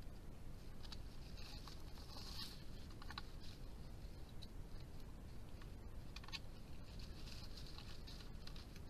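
European badger rooting and feeding in strawberry plants: faint irregular rustling of leaves and small crunching clicks, over the trail camera's steady hiss.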